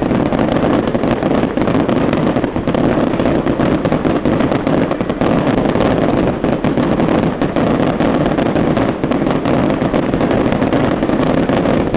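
Fireworks display going off in a dense, unbroken barrage: many sharp pops and cracks close together over a steady rumble.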